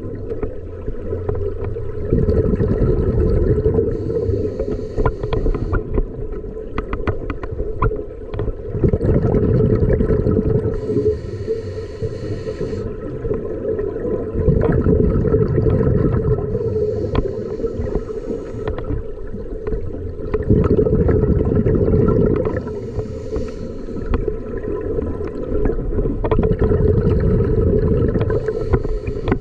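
Scuba diver breathing through a regulator underwater: a short hissing inhale about every six seconds, each followed by a long, bubbling rush of exhaled air.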